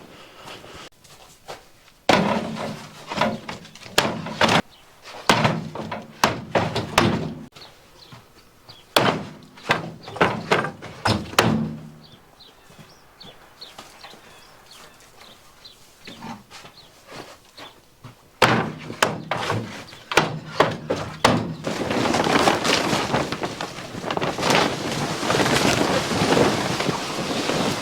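Wooden pallets being handled and tossed, making bursts of knocks and clattering wood. Over the last few seconds there is a steady rush of wind on the microphone.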